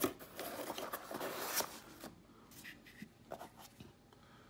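Cardboard box flaps folded shut and rubbed under the hands: a sharp click, then scratchy scraping. About two seconds in this gives way to a few light clicks and taps as small resin model parts are handled.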